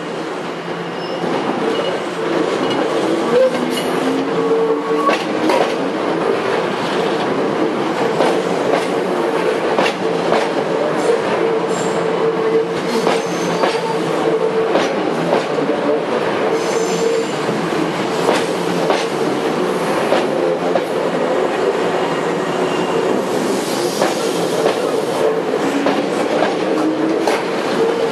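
Hankyu electric commuter train passing slowly at close range, its wheels clacking over rail joints with a steady whine from wheels on rail. It gets louder about two seconds in as the cars reach the track beside the listener.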